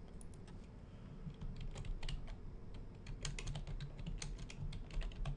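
Typing on a computer keyboard: a run of irregular key clicks that starts about a second and a half in.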